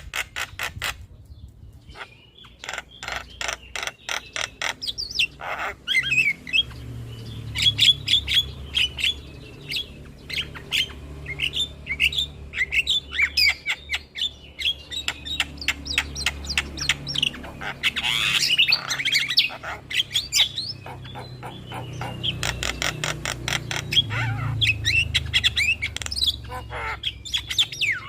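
Javan myna song: rapid runs of dry clicks mixed with short whistled notes and harsh squawks, over a low hum.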